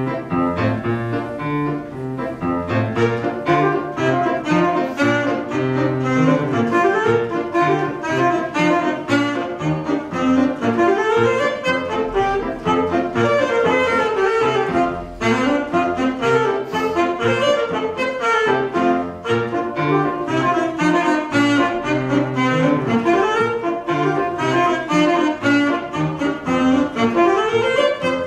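Alto saxophone playing a quick-moving melody over grand piano accompaniment, with a brief drop in level about halfway through.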